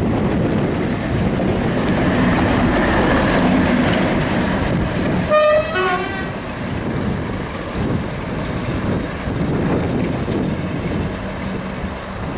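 Class 37 diesel locomotive with an English Electric V12 engine running light past on the track, the engine and wheel noise steady and loud. About five seconds in, as it passes close, it gives a brief blast on its horn: two short notes, the second lower. After that the running noise eases as it moves away.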